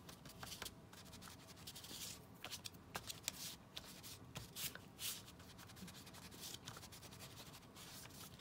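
Quiet rustling and rubbing of paper being handled, with scattered light taps and scrapes at an uneven pace.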